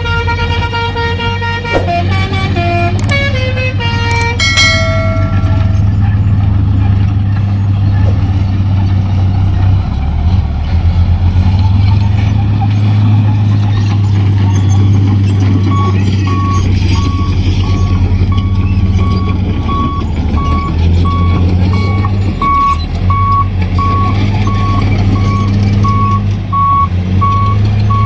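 Telolet musical horn on a Hino dump truck playing a short stepped melody for about five seconds, then the truck's diesel engine running with a steady deep drone. From about halfway through, its reversing alarm beeps about twice a second.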